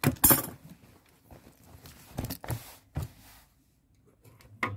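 Denim fabric being handled at the sewing machine table: rustling and brushing in short bursts, loudest at the very start, with a few more near the middle and one short knock near the end.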